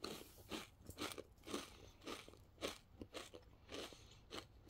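A person chewing a crisp black sesame wafer roll cookie, its crunches coming about twice a second.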